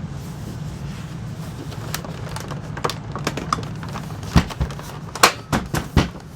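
Hard plastic parts of an upright vacuum cleaner being handled and fitted together: scattered clicks and knocks, thickest and loudest about four to six seconds in, over a steady low hum.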